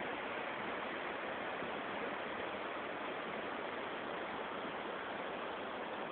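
Muddy floodwater rushing down a swollen river in spate, a steady, even rush of water.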